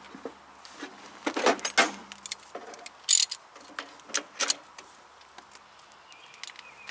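Steel hand tools clinking and knocking: an 11 mm six-point socket picked up from among the tools and fitted onto the brake hose banjo bolt, a few sharp metallic clinks that are loudest about one and a half and three seconds in.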